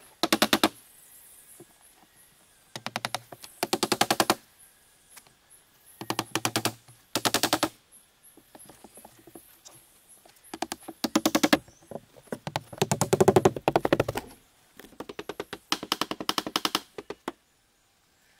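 Rapid runs of hammer blows nailing split log slabs onto the roof of a log hive, in about nine quick bursts with short pauses between.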